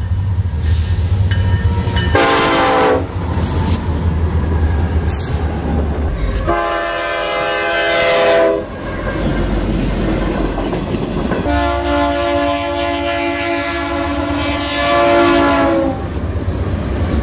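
Diesel freight locomotives passing, their multi-chime air horns sounding three times: a short blast about two seconds in, a longer one around the middle, and a long blast lasting several seconds near the end. The low rumble of the locomotives runs underneath throughout.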